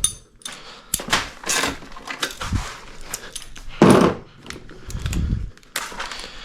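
Irregular clinks, clunks and rattles of hand tools and metal parts being handled, as bolts and parts are worked loose. The loudest clunk comes about four seconds in.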